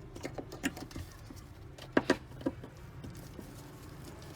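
Light clicks and taps of a hand tool and small screws as the fuel pump cover screws are undone, a few sharper ticks about two seconds in.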